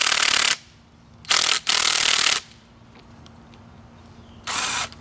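Cordless impact wrench hammering on a strut's top nut in short bursts, loosening it while the shock rod is held pushed down: one burst ends about half a second in, two more come close together after a second, and a short one comes near the end.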